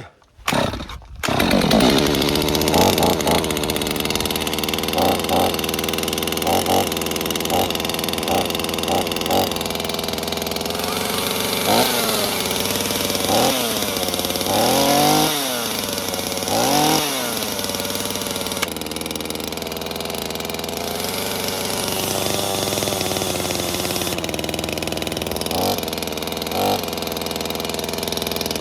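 Holzforma G255 45.4cc two-stroke chainsaw catching on a cold start about a second in, then idling. It is blipped repeatedly, with a few longer revs that rise and fall, as it warms up after sitting.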